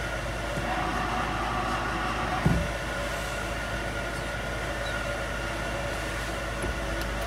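Car engine idling with the steady grinding of a worn clutch release (throw-out) bearing, the sign that the bearing is failing and must be replaced. A single knock about two and a half seconds in.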